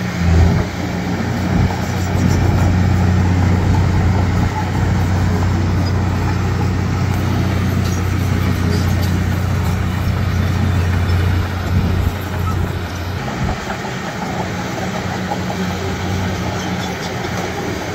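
Diesel engine of heavy earthmoving machinery running steadily with a low hum, working harder from about two seconds in and easing off a little near thirteen seconds.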